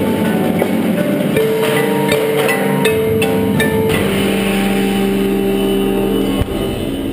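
Marimba struck with four yarn mallets amid a percussion ensemble, fast notes giving way about four seconds in to a long held chord. A sharp knock sounds near the end, after which the music falls quieter.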